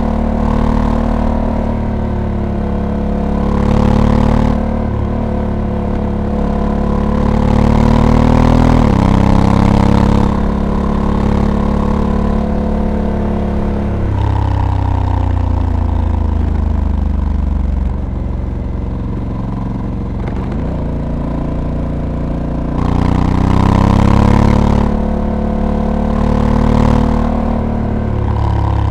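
Honda Africa Twin's 1084 cc parallel-twin engine riding along, revs rising and falling with abrupt pitch drops as the dual-clutch transmission changes gear. Wind rushes over the microphone in gusts, loudest near the start, about a third of the way in, and near the end.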